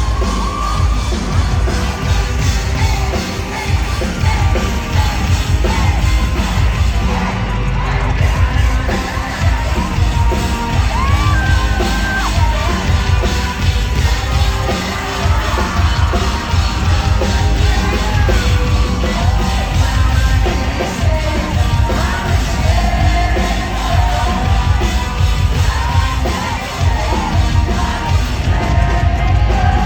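Live rock band playing loud, with heavy drums and bass and a singer yelling and singing over it, crowd noise underneath, echoing in a large hall.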